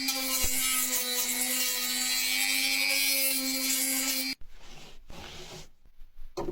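Electric sander running steadily against a plastic bumper, smoothing the repaired area. It cuts off suddenly about four seconds in, followed by lighter rubbing and a couple of clicks.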